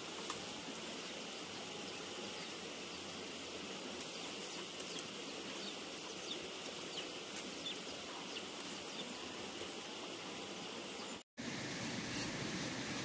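Steady outdoor background hiss with faint, scattered bird chirps. Near the end the sound drops out for a moment and returns a little louder, with a few light clicks.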